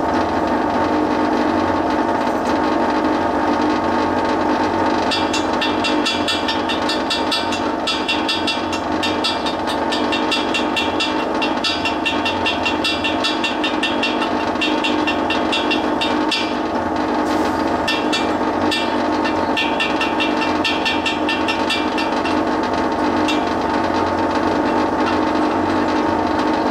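Stick welder's cooling fan running with a steady loud hum, a racket caused by mud dauber nests built up on the fan, with stretches of crackling higher up through the middle.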